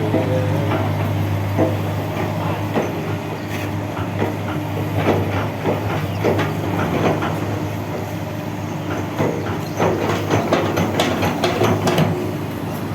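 Excavator's diesel engine running steadily with irregular metallic clanks and knocks from the working machine, coming thickest near the end.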